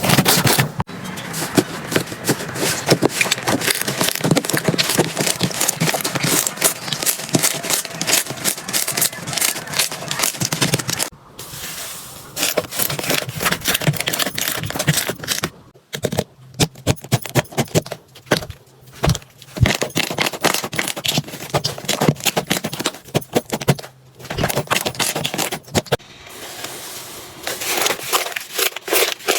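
Slime being squeezed and worked by hand, making dense, rapid crackling and popping, with a few short breaks.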